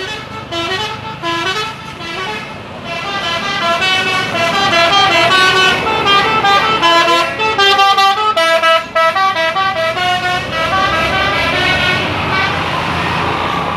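Telolet Basuri multi-tone musical bus horn playing a quick melody of stepped horn notes for about ten seconds. The tune then stops and steady vehicle and traffic noise remains.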